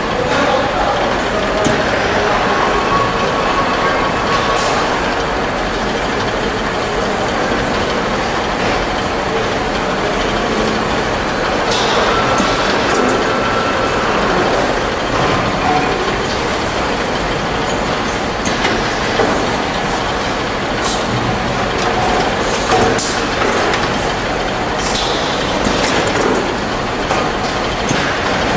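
Steady din of a CRT picture-tube production line: conveyor and machinery running, with a few short, high hisses and clanks breaking through every several seconds.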